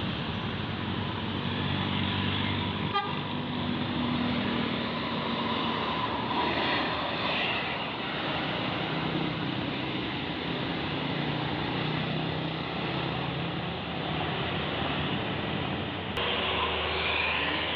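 Tour buses' diesel engines pulling uphill, with toots of a bus horn.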